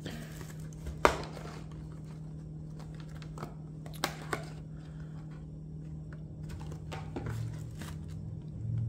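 Cardboard sunglasses box being handled and opened: the paperboard flaps folded back and the box shifted in the hands, giving scattered light scrapes and taps, the sharpest about a second in.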